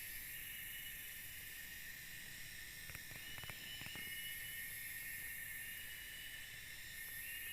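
Steady, high-pitched chorus of forest insects, with short rising calls repeating over a continuous drone. A few faint clicks come about three to four seconds in.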